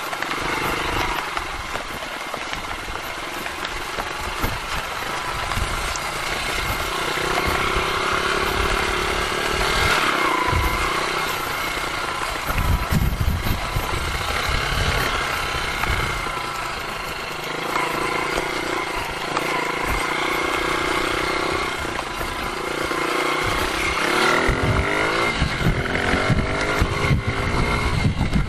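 Rusi KR 125 dirt bike's engine running under way, its pitch rising and falling with the throttle, with wind buffeting the microphone.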